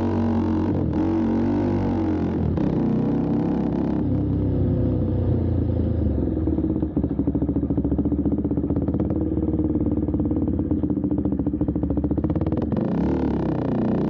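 Husqvarna Svartpilen 401's single-cylinder engine running loud through a custom aftermarket muffler, with the catalytic converter removed. Its pitch rises and falls with the throttle near the start and again near the end, and it holds steady in between.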